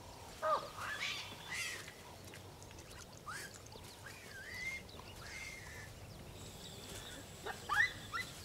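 Short wild animal calls, each sliding up or down in pitch, come in scattered groups over a quiet outdoor background. The loudest pair comes near the end.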